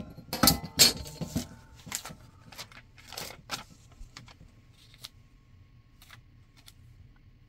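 Paper rustling and crinkling as magazine cut-outs are handled and laid on a gluebook page, loudest in the first second and a half, then a few faint rustles and taps.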